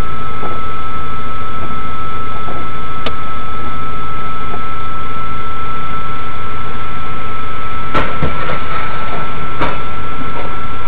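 Loud, distorted recording of vehicle noise with a steady high whine throughout. A few sharp knocks stand out, the strongest about eight and nine and a half seconds in.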